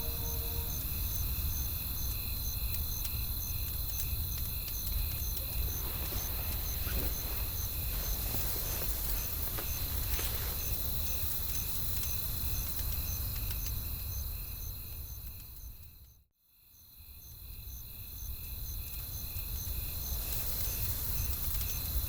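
Night woodland ambience: crickets chirping steadily, about two chirps a second, over a low wind rumble, with a few faint crackles of a wood fire. The whole bed fades out to silence about sixteen seconds in and fades back up.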